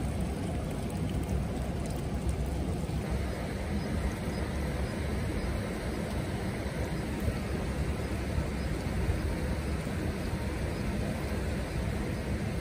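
Steady rushing of water, deep and unbroken, turning a little brighter about three seconds in.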